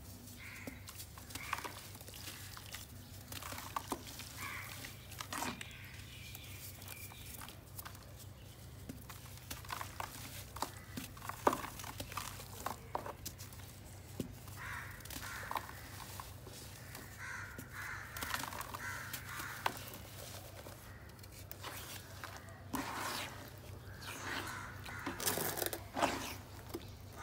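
Fingers crumbling and scraping a dry clay cake into a tub of muddy water: irregular gritty crackles and clicks, with squelching and sloshing as the wet mud is squeezed by hand.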